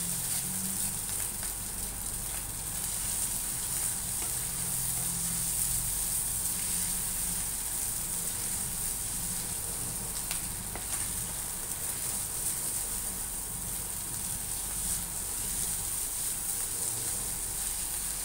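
Corned beef sizzling as it fries in a nonstick pan while being stirred with a spatula, a steady hiss over a low hum. The meat is being fried until its moisture is gone and it turns dry and crisp.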